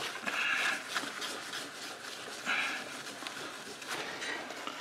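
A folded paper towel rubbed back and forth over a tile palette, scrubbing off thick dried paint softened with airbrush cleaner. It makes a rough, breathy rubbing, with louder strokes near the start and again about two and a half seconds in.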